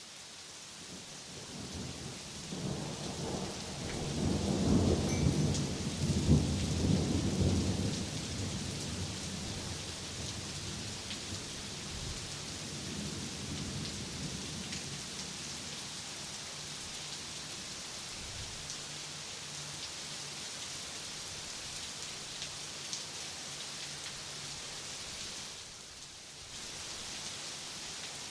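Steady rain with a long roll of thunder that swells a couple of seconds in and fades by about eight seconds in, then a fainter rumble of thunder a few seconds later. The rain briefly drops away near the end.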